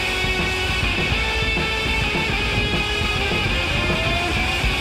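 Rock music with guitar playing steadily.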